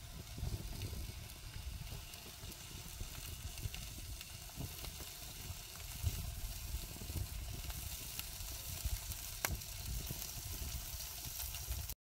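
Pork sausages sizzling on a disposable foil barbecue tray, with scattered small crackles from the fire and a sharp pop about nine and a half seconds in.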